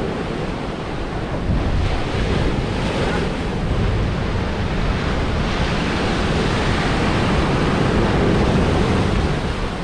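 Ocean surf breaking and washing up a sandy beach in a steady, continuous rush, with wind rumbling on the microphone.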